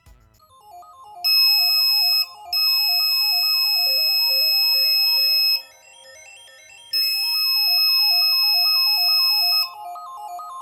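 Smoke alarm kit's buzzer sounding a steady high-pitched tone over electronic background music. The tone comes on about a second in, breaks briefly, holds for about three seconds, stops, and sounds again for nearly three seconds.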